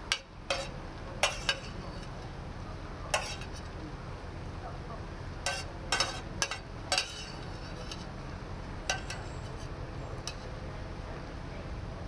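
Cutlery clinking and scraping against a plate while food is eaten: about a dozen short, sharp clicks scattered through, bunched together around six seconds in, over a steady low outdoor background.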